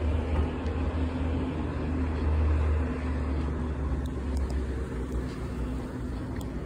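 Steady low rumble of outdoor traffic noise, with a few faint ticks in the second half.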